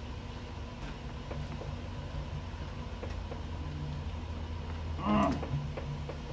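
Fillet knife cutting along an amberjack's backbone, giving a few faint clicks and scrapes, over a steady low hum. A brief wavering, voice-like sound about five seconds in is the loudest thing.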